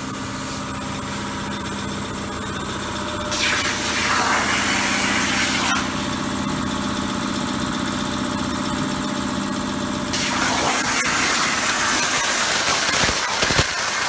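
CNC plasma cutter at work: a loud, harsh hiss from the plasma torch cutting metal, over a steady machine hum. The hiss comes in abruptly about three seconds in, eases around six seconds, and comes back strongly about ten seconds in.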